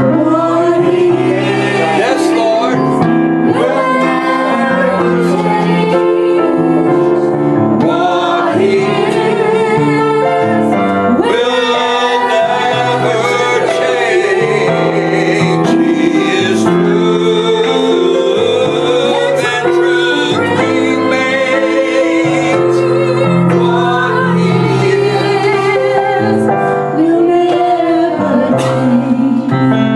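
A woman singing a gospel song, accompanying herself on a Casio electronic keyboard.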